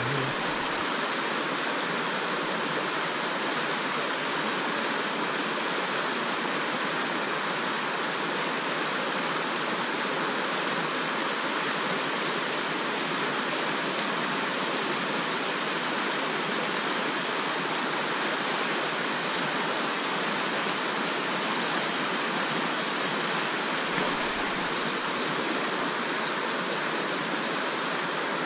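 Shallow river water rushing steadily over a rocky riffle, an even, unbroken rush of moving water close by.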